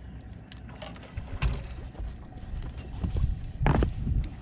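Knocks and thumps against a fishing boat's deck and side as a hooked bass is landed, with a few louder knocks near the end over a low rumble.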